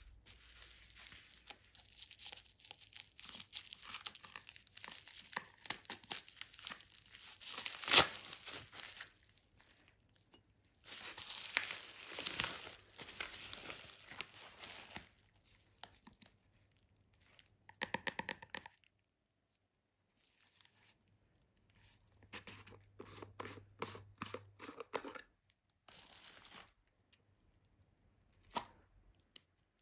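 Bubble wrap crinkling and tearing as it is pulled off a plastic tub by hand, in several bouts with pauses between them and one sharp snap about eight seconds in. Near the end there is a single click.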